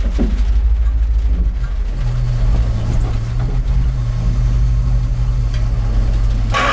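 Truck engine rumbling steadily during a tow start of a GAZ-66, with a steady low hum joining about two seconds in. This attempt does not get the GAZ-66's engine to fire.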